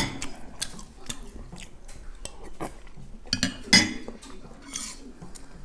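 Metal spoon clinking and scraping against a ceramic bowl of wonton soup, in a string of light clicks with the loudest knocks a little past the middle, along with chewing.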